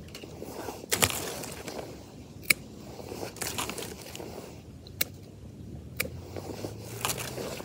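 Secateurs snipping through fresh willow stems: five sharp snips spaced one to two and a half seconds apart, with the rustle of the cut stems and leaves being handled between them.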